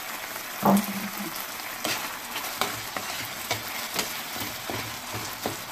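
Sliced peppers and onions in sauce sizzling in a nonstick frying pan while a spoon stirs them, its strokes against the pan making sharp clicks every half second or so. A short louder sound comes just under a second in.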